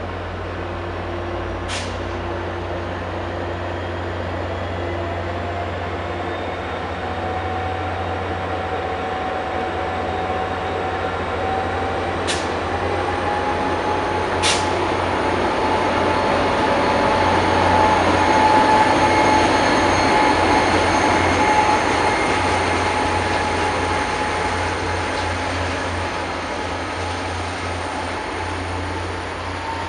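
MBTA commuter rail train running by on the tracks, a steady rumble of wheels on rail that swells to its loudest about two-thirds of the way through and then eases off. Under it runs a faint whine that rises a little in pitch in the first half, and a few sharp clicks are heard early on.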